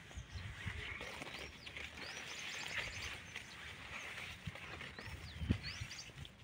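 Birds calling in short, repeated whistles that sweep up and down in pitch, over a steady outdoor hiss and low wind rumble. A single low thump comes about five and a half seconds in.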